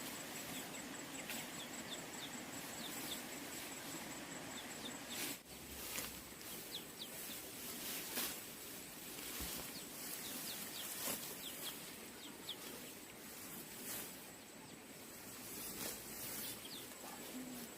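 Outdoor rural ambience: a steady noise bed broken by frequent short rustles and clicks, with faint high chirps scattered through it.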